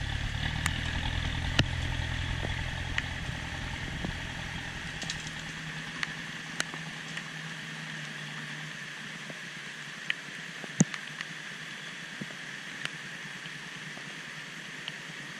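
Engine of a 6x6 off-road truck running as it pulls away up a muddy track, its low rumble fading out over the first seven or eight seconds. A steady high hiss and a few sharp clicks remain, the loudest about eleven seconds in.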